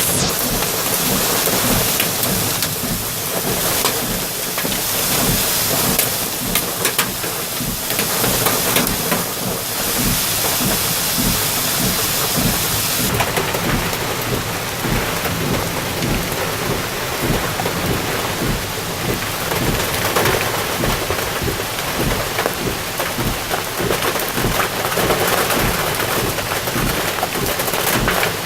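Heavy thunderstorm rain pouring down steadily, thick with sharp hits of drops striking a surface. The high hiss eases a little about halfway through.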